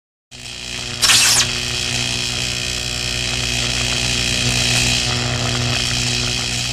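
Electric arc sound effect: a loud, steady electrical buzz over a low hum, starting suddenly just after the start, with a sharp zap about a second in.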